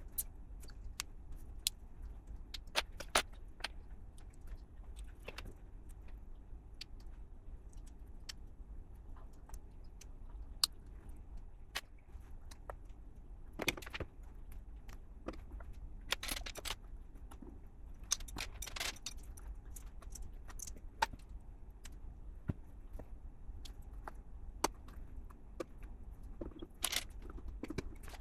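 LEGO pieces clicking and rattling: scattered sharp clicks as plastic bricks are handled and snapped together, with a few short bouts of rattling through loose pieces, over a low steady hum.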